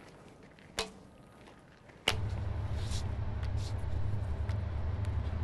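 A light knock about a second in, then at about two seconds a steady low machinery rumble starts suddenly and holds, with a constant low hum in it.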